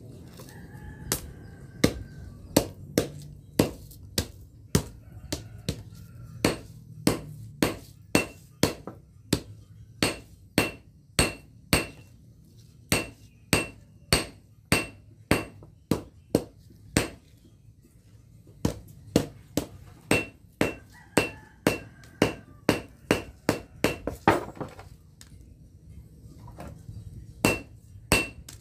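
Hand hammer striking a red-hot folded pamor billet on an anvil, hot-forging the layered stock for a blade: about two blows a second, each with a bright metallic ring. The hammering stops briefly twice.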